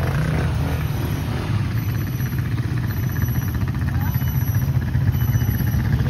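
ATV engine running steadily at low revs, getting slightly louder near the end.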